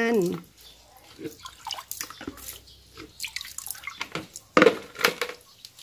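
Brown liquid fertilizer of rice-washing water and fermented cow-dung slurry sloshing and splashing in a plastic basin as it is mixed with a plastic bucket dipped and tipped into it. Irregular splashes and drips, with a louder burst of splashing near the end.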